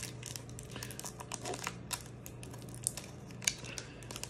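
Foil booster pack wrapper crinkling and crackling in the fingers, in many irregular small crackles, as its tightly glued top seal is picked at and pried open.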